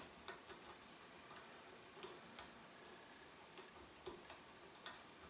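Light, irregular metallic clicks and taps from a lock pick and tension wrench being handled and fitted into a padlock's keyway.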